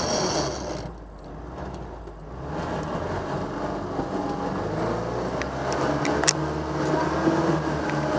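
Off-road vehicle's engine heard from on board, running steadily and pulling harder from about two seconds in as it drives up a muddy forest track, with a few knocks and rattles from the body over the ruts.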